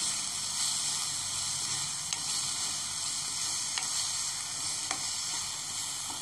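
Chopped onions with curry leaves and green chillies frying in oil in a non-stick pan: a steady sizzle as they are stirred with a spatula, with a few light clicks of the spatula against the pan.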